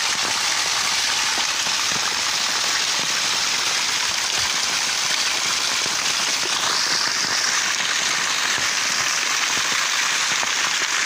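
Heavy downpour: a steady, dense hiss of rain, with streams of runoff water pouring from drain pipes in a stone wall.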